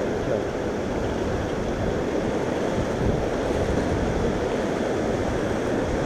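Fast river rapids rushing steadily around an inflatable raft.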